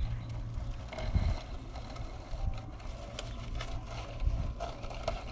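Low wind rumble on the microphone, with scattered crackles of twigs and two dull bumps as a twig nest is pushed into a small wooden birdhouse.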